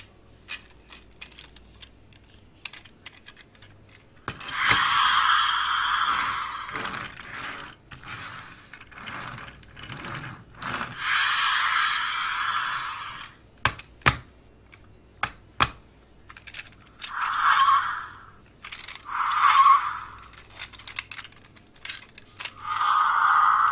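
Allspark Tech Bumblebee toy in car mode playing short electronic car driving sound effects through its small built-in speaker, five bursts in all, the last two brief ones close together. Between them come sharp clicks and rattles of the toy's plastic parts being handled and set down.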